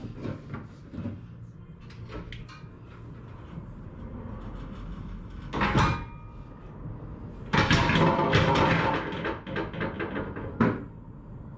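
Acura RSX front subframe coming down: scattered metal knocks and clicks, a sharp clank about six seconds in, then a loud clattering crash lasting a couple of seconds as the subframe drops, and one more clank near the end.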